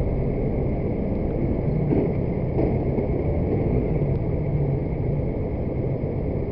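Steady low rumble of idling traffic, with a city bus and motor scooters running close by, picked up by a car dashcam's microphone.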